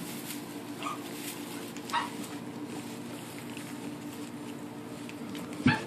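French bulldog puppies giving short, high-pitched whimpering cries: three brief ones, about a second in, two seconds in, and a louder one near the end, over a steady low hum.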